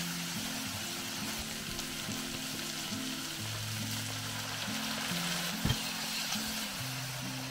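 Eggplant slices and ground meat sizzling in a hot frying pan as they are stirred with a wooden spoon. About four seconds in, water is poured into the pan and the sizzle grows louder, with a single sharp knock a little later. Background music with low held notes plays underneath.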